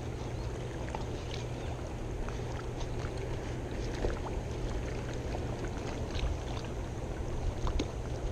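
Steady low rush of fast-flowing river water below a dam's outflow, with a few faint, scattered clicks over it.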